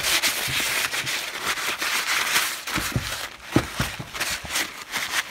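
Kitchen paper towel rubbing and scuffing over the plastic housing of a Ryobi 36V battery chainsaw, a continuous crinkly scratching with a few light knocks in the middle.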